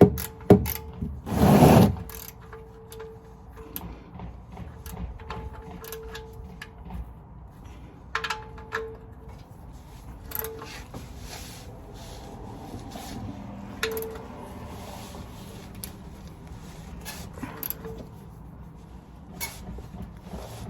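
Scattered clicks and knocks of tools and parts being handled during car maintenance, with a louder scraping noise about a second and a half in, over a faint steady hum.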